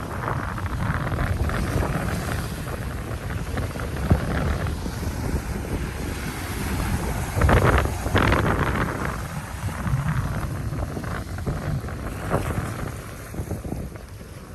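Sea waves washing onto the beach, with wind buffeting the microphone and a low rumble. A louder wave surges about halfway through.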